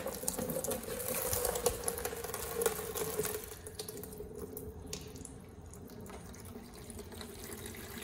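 Sediment-laden water from a water heater's drain hose pouring in a stream into a half-filled plastic tub and splashing, louder for the first three seconds and then quieter. The flow has restarted after an air burst broke up the sediment clog in the drain valve.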